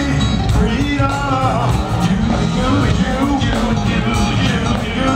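Live soul/R&B band playing, with a male lead singer and female backing singers singing over it.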